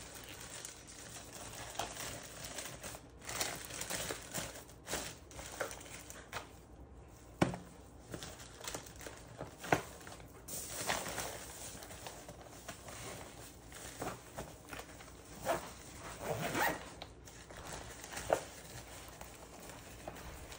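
Plastic bags and a plastic food container crinkling, rustling and knocking as they are packed into an insulated lunch bag, in irregular bursts with scattered sharp clicks.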